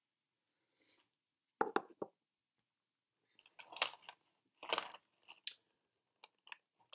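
Small plastic cosmetics (lipstick tubes and lip pencils) being handled and rummaged through, giving a few scattered clicks and rustles with a sharper click about four seconds in.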